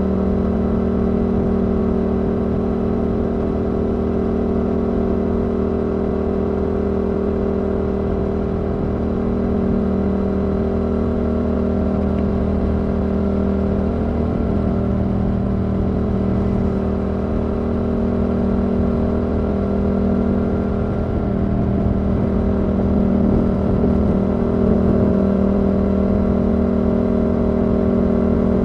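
Yamaha R7's 689 cc parallel-twin engine running through a Yoshimura R77 exhaust while cruising at a steady engine speed, its note holding one even pitch.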